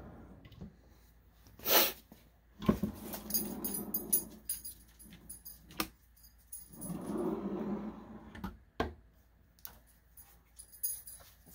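Wooden oak drawers and a cabinet door being pulled open and pushed shut, sliding and knocking several times, with the two loudest knocks close together near the start.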